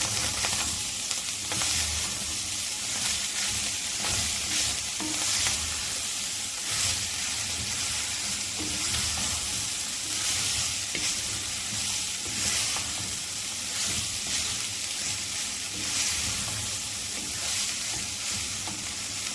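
Ground beef and vegetable filling, with potato and carrot, frying in a pan: a steady sizzle, with light stirring scrapes now and then.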